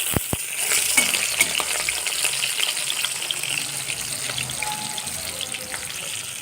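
Pieces of pona (carp) fish rubbed with salt and turmeric sizzling and crackling as they fry in hot oil, with two sharp utensil knocks at the start.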